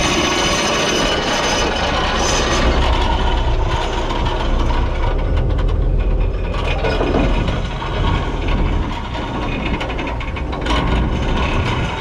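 A head boat's engine running low and steady, with mechanical rubbing and clatter as the anchor line is let out.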